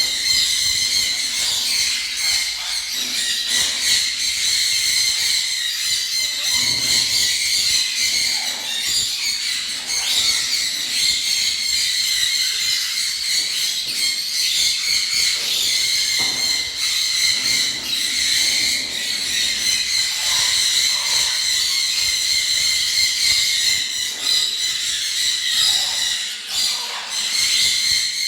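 A flock of small cage birds chattering and chirping continuously, a dense, high-pitched din with no pause.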